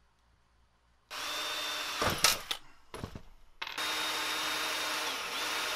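Ryobi cordless drill boring holes into a painted metal panel plate: a short run about a second in, a few knocks, then a longer steady run with a high whine that dips slightly in pitch near the end.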